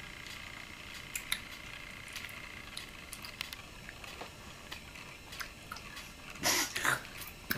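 Faint wet mouth clicks and smacks of people sucking on Warheads extreme-sour hard candies. Near the end comes a louder breathy outburst.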